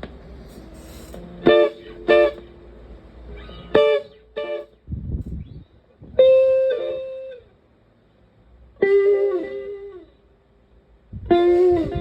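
Stratocaster electric guitar through a PT2399-based echo pedal and a Fender Twin Reverb–style amp. Two short chord stabs each come back as an echo repeat about half a second later, then three longer chords ring out. There is a low thud about five seconds in.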